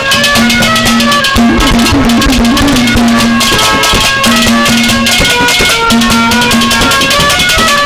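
Instrumental interlude of live Haryanvi ragni folk music: quick drum and rattling percussion under a held low drone note and a stepping melody line.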